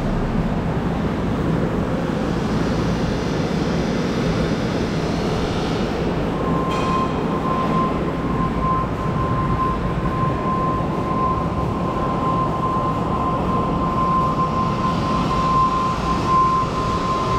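Henschel FM10 10-litre high-intensity mixer running at high speed: a steady, dense mechanical rush. A steady high whine joins about six seconds in and holds, with a brief click just after it starts.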